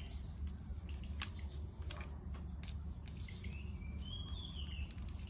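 Rural outdoor ambience: a steady high-pitched insect drone over a low rumble, with bird chirps at the start and again around the middle. There are a few sharp clicks, one about a second in and one near the end.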